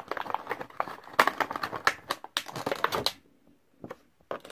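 A small cardboard box being opened by hand, with its inner box sliding out of the outer sleeve and the packaging rustling: a quick run of papery rustles and scrapes that stops about three seconds in, then a short pause before more handling at the end.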